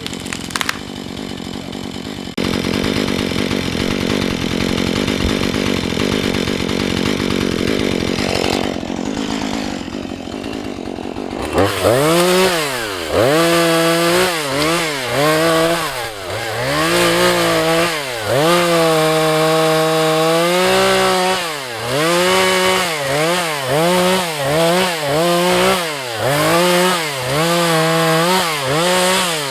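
Husqvarna 435 two-stroke chainsaw, running steadily with a dense noisy sound for the first third or so, as in a cut. From about eleven seconds in it revs up and down again and again, the throttle blipped repeatedly.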